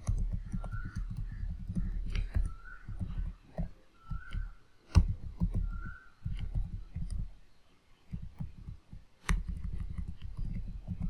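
Typing on a computer keyboard: an irregular run of keystrokes, heard mostly as dull low thumps with sharper clicks mixed in, and a short pause about eight seconds in.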